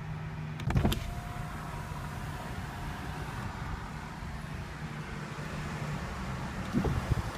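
Steady low hum in a car's cabin, with a sharp knock about a second in and a couple more clicks near the end.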